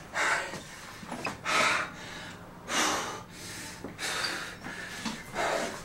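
A man breathing hard after exercise: about five loud, sharp breaths, roughly one every second and a quarter.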